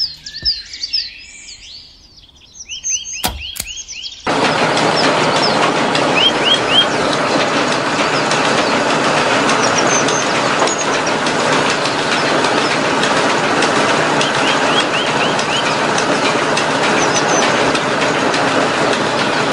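Birds chirping, a couple of sharp clicks, then about four seconds in a small electric pump motor starts and drives a miniature flour mill through a rubber-band belt: a loud, steady, dense whirring noise from the motor and the mill grinding grain. Short chirps in quick groups of three or four keep sounding over it.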